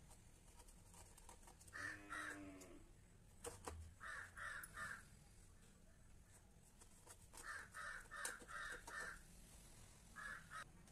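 Crows cawing faintly in short runs of two to six caws, about three a second, with a few light clicks between the runs.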